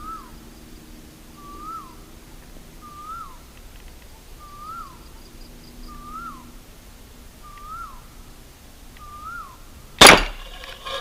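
A PVC toy gun fires a single loud, sharp shot about ten seconds in. Before it, a bird calls over and over, a short rising-and-falling note about every second and a half.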